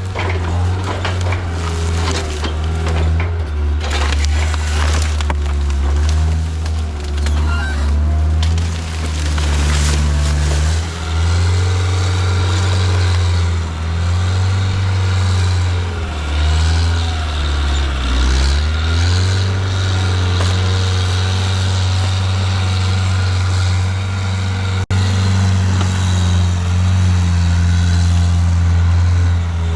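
Diesel engine of a John Deere 323D tracked skid steer running hard at high revs. It sags briefly under load about 18 seconds in, then picks back up. Over the engine, logs and brush crack and crunch as the machine pushes them, mostly in the first ten seconds.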